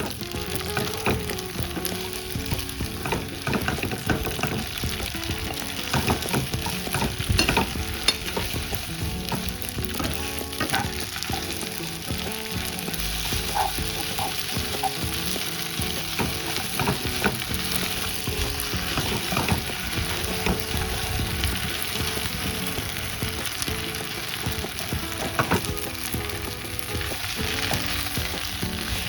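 Wide rice noodles stir-frying in a hot pan, with continuous sizzling and frequent sharp scrapes and taps of the spatula against the pan as the food is tossed.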